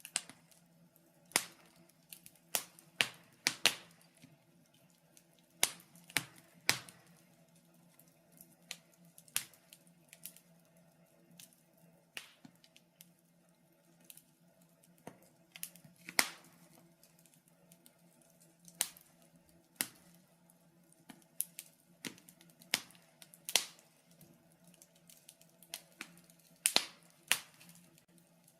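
Wood fire crackling in a fireplace: irregular sharp pops and snaps, sometimes in quick clusters, over a faint steady low hum.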